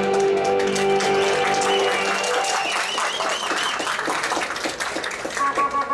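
Guitar-led music playing loudly; its held notes drop away about two seconds in, giving way to a busier patch of sharp claps or taps and a wavering high tone.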